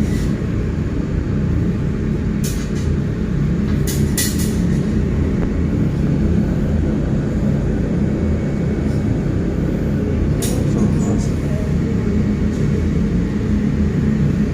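Steady low drone of running machinery, with a few short sharp clicks about two and a half, four and ten seconds in.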